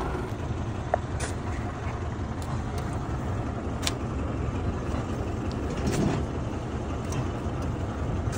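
Belarus tractor's diesel engine running steadily with a low, even rumble. A few short sharp knocks stand out over it, about one, four and six seconds in.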